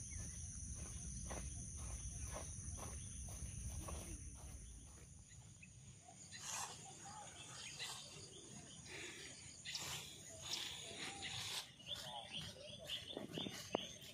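Outdoor ambience of a grassy hillside. For the first few seconds a steady high-pitched insect drone sits over a low rumble. Then come scattered rustles and clicks, and near the end a run of rapid, evenly repeated chirps.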